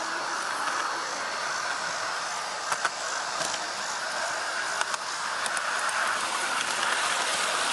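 G-scale garden-railway train rolling along its track: a steady rushing noise of wheels on rails, with a few sharp clicks, the loudest pair about three seconds in and more near five seconds.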